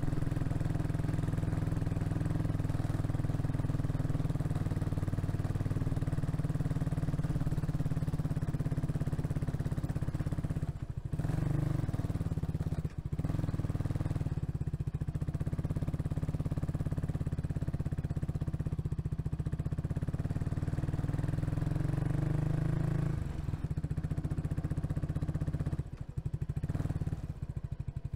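Kawasaki Estrella's single-cylinder engine running as the bike rides along, heard from the saddle. The engine note dips briefly twice around the middle, then falls away in the last few seconds as the bike slows.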